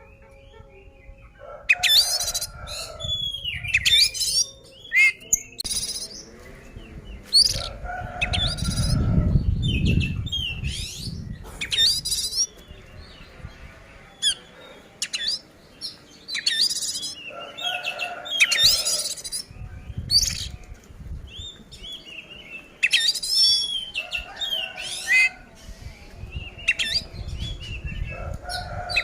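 Oriental magpie-robin (kacer) in loud, full song: bursts of varied whistles and rapid sweeping chirps, repeated every second or two. This is the combative kind of song used as a lure to rile rival magpie-robins. A low rumble sits beneath the song about a third of the way through.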